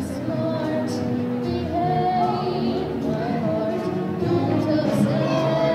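School concert band of brass and woodwind instruments playing a piece in long, held notes.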